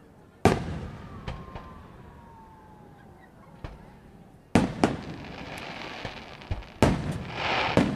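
Aerial firework shells bursting: a loud bang about half a second in, two bangs close together around four and a half seconds, and another near seven seconds, with smaller pops between. A crackling hiss follows the later bursts.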